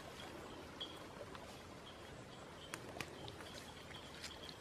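Quiet outdoor field ambience: a faint steady hiss with short, high chirps recurring through it and a few soft clicks.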